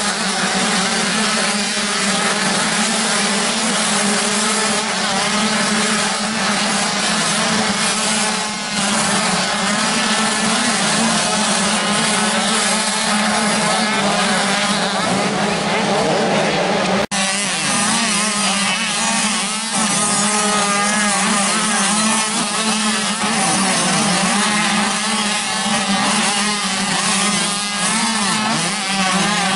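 A pack of motocross bikes racing, many engines revving and changing pitch at once in a dense, wavering drone. The sound cuts out for an instant a little past halfway.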